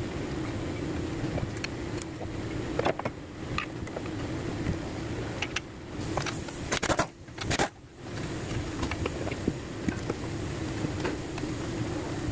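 Scattered clinks and knocks of hand tools on metal while front suspension parts are unbolted, with a few louder knocks about seven seconds in, over a steady hum.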